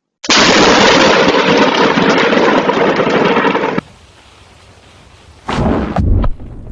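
Thunderstorm recordings cut together: a loud, steady roar of storm noise that cuts off abruptly, then a sudden thunderclap with a deep boom about five and a half seconds in, followed by a second sharp crack.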